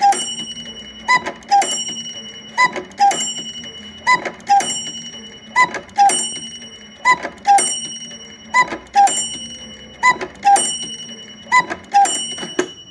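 Seiko Birdie QPB328R quartz cuckoo clock striking ten o'clock: the two-note cuckoo call repeats about every second and a half, each time with a squirrel figure striking a bell that rings on between calls. The strike ends near the end.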